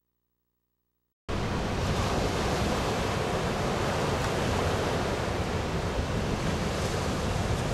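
Silence for about a second, then the steady rush of large ocean waves breaking, with wind on the microphone.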